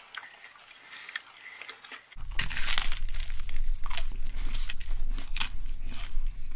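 Close-miked biting and chewing of square pan pizza with a crisp crust. Soft chewing for about two seconds, then a run of loud crunches from bites into the crust, over a low steady hum.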